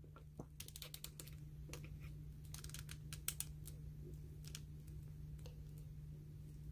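Faint, scattered clicks and taps of a plastic S.H. Figuarts Satoru Gojo action figure's joints and parts as hands bend its legs and body into poses, over a low steady hum.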